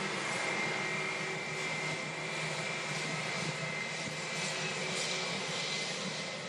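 Airbus A320 airliner's jet engines running at taxi power as the aircraft rolls past: a steady rush of noise with a thin high whine over it.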